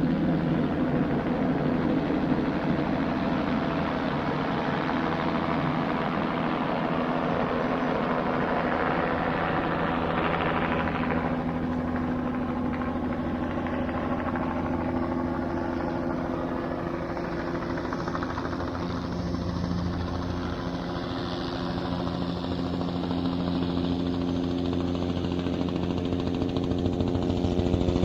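Police helicopter hovering overhead with a steady rotor chop and engine hum, easing off slightly about two-thirds of the way through and growing louder again near the end.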